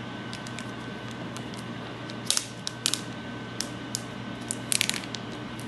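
Clear plastic sleeve crinkling and clicking as it is handled and slid off a phone's box, in scattered sharp crackles, loudest about two seconds in and again near the end, over a steady background hum.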